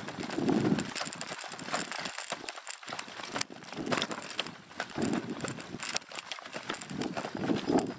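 Bicycle ridden over a rough, rutted dirt track: tyres rolling over the ground and the bike and its bouncing camera boom rattling and knocking, with frequent sharp clicks and uneven low rumbles.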